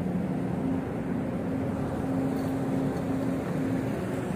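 An engine running steadily: a low drone with a constant hum that holds the same pitch throughout.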